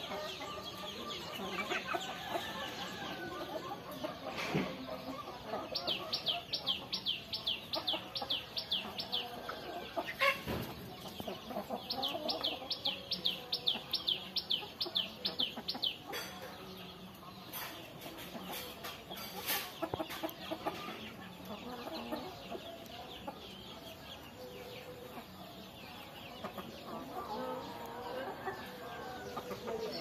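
A flock of chickens, roosters among them, clucking and calling. About six seconds in, and again about twelve seconds in, a run of quick, high chirps lasts a few seconds.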